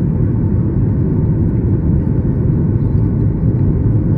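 Airliner cabin noise during the climb after takeoff: a steady, loud roar of the jet engines and rushing air, heaviest in the low range, with a faint steady hum over it.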